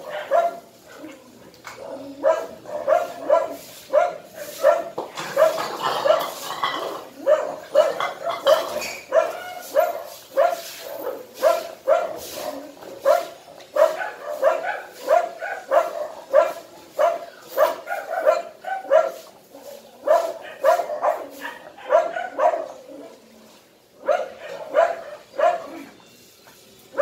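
Siberian husky barking over and over, about two barks a second, with a short break near the end.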